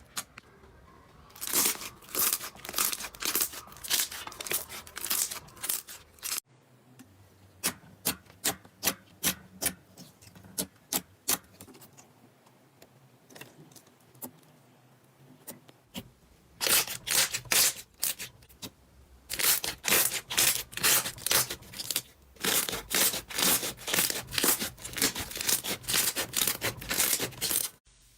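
Slime being squeezed and pressed by hand, making quick runs of sharp pops and clicks, several a second, across three separate clips.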